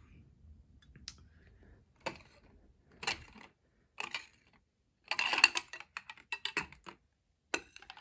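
Hard plastic graded-card slabs clicking and clacking against each other and against clear plastic display stands as they are handled and set down: scattered knocks, with the loudest cluster about five seconds in.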